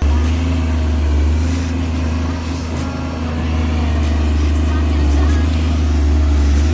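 Komatsu excavator's diesel engine running steadily, a deep, even drone.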